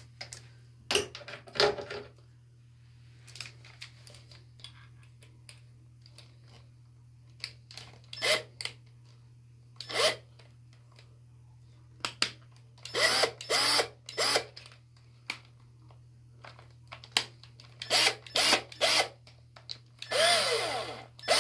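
Cordless drill run in a series of short trigger pulls, its motor whirring up and down in pitch, as it drives a screw into a wall anchor. The longest run comes near the end, as the screw goes home.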